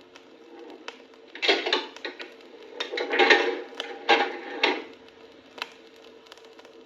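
Coin-operated café machine working: bursts of mechanical clunking and rattling over a steady machine hum, the loudest about three seconds in.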